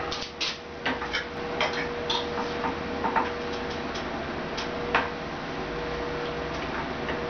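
Irregular light clicks and taps from a strip of 16-gauge mild steel being handled and set in a sheet metal brake, thickest in the first five seconds, over a steady hum.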